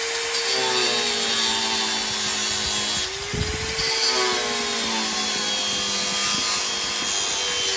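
Bosch angle grinder with a small cutting disc cutting through a rice cooker's lid hinge: a steady grinding rasp over the motor's whine. The whine dips briefly about three seconds in.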